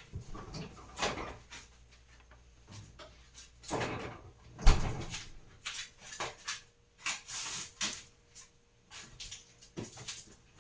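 Groceries being handled and packed into a refrigerator: scattered knocks, clatters and rustling, the loudest a thump about halfway through.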